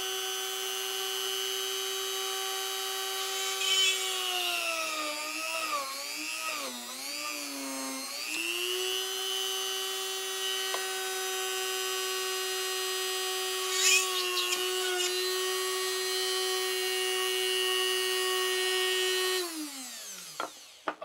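Rotary tool in a Dremel Workstation drill-press stand running with a steady high whine. For several seconds its pitch sags and wavers as the bit bores a small hole into a wooden block, then it returns to full speed. Near the end it is switched off and winds down to a stop.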